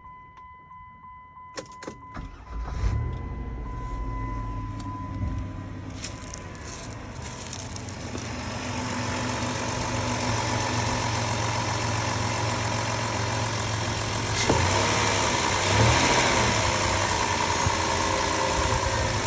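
Chrysler 3.8 L V6 minivan engine cranked and started about three seconds in, after a fading chime tone, then settling into a steady idle. This is the restart that the owner says clears the rough idle, and a hiss builds up behind the idle from about eight seconds in.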